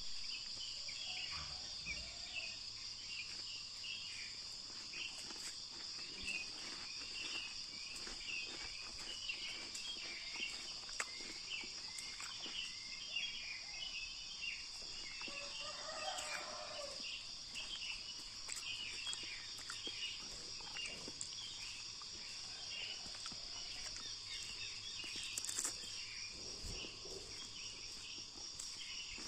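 Rural outdoor ambience: a steady high-pitched insect drone with dense chirping over it and scattered ticks of water drops. A lower call sounds about sixteen seconds in.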